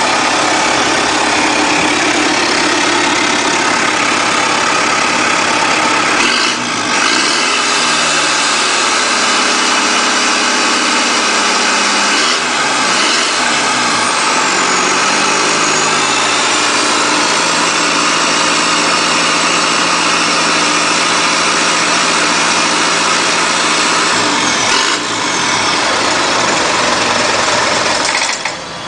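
Isuzu 4JB1 four-cylinder diesel engine running on a bench stand, revved up and let back down a few times between spells of steady running.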